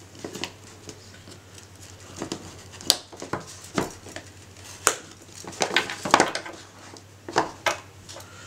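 A knife slitting the seal of a Google Nexus 4 phone box, then the box being handled and its lid lifted off, with scattered sharp clicks and taps.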